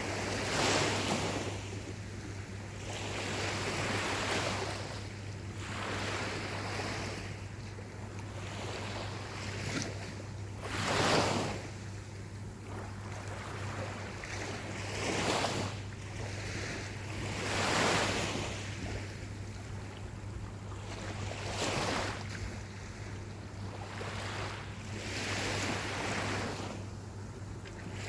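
Gentle ocean waves breaking on a beach: a wash of surf that swells and fades every few seconds, the strongest about eleven seconds in.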